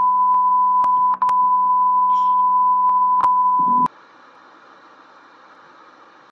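TV test-card tone: a steady, high-pitched pure beep over a faint hum, with a brief dropout and a few clicks. It cuts off suddenly near four seconds in, giving way to faint hiss of analogue TV static.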